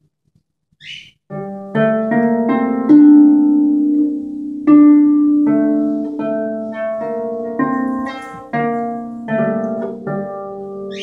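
Harp played solo: plucked notes and chords over a repeated low note, each ringing and fading. The playing resumes about a second in, after a short pause.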